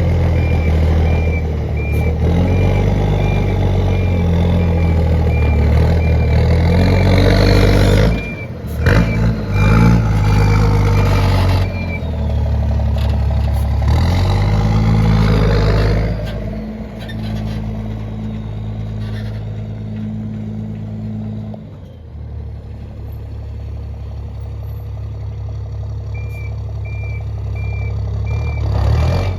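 Ford Cargo 2422 truck's turbo diesel, fitted with a comb on the turbo intake and a straight exhaust, revving up and down as the truck maneuvers, with a brief dip about eight seconds in. A reversing alarm beeps about twice a second for roughly the first twelve seconds and again near the end. In between, the engine settles to steadier running that drops to a lower idle about two-thirds of the way through.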